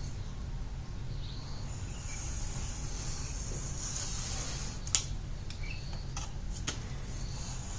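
Snap-off utility knife blade scoring through paper with a light scratchy hiss, then a sharp click about five seconds in and a few lighter ticks after, over a steady low hum.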